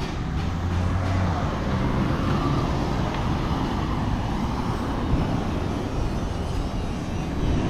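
Road traffic: motor vehicles running past with a steady low rumble.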